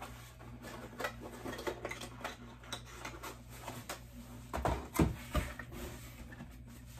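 A cardboard box and its contents being handled: rustling and light clicks of packaging, with a few louder knocks about five seconds in as it is set down.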